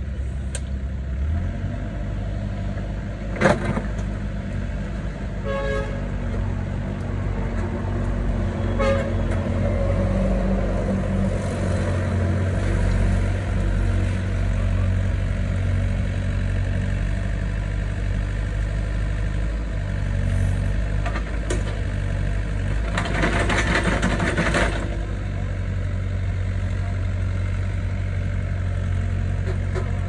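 Doosan mini excavator's diesel engine running steadily under working load as the machine digs and swings. A sharp clank comes about three and a half seconds in, a brief horn-like toot about two seconds later, and a loud rasping noise for about two seconds near the end.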